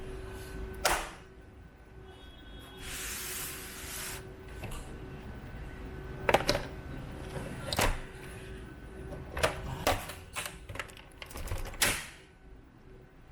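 Irregular sharp clicks and knocks of tools and parts being handled during a monitor repair, about half a dozen, with the loudest about six seconds in. There is a brief hiss about three seconds in and a faint steady hum underneath.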